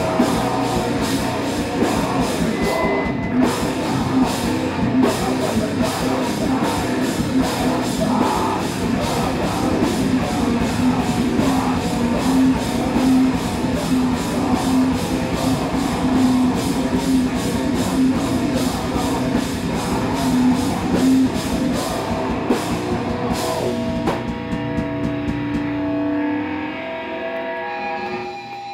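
Heavy rock band playing live in a small room: distorted electric guitars, bass guitar and drum kit at full volume. About 24 seconds in the drums stop and the guitars are left ringing on held notes as the song ends.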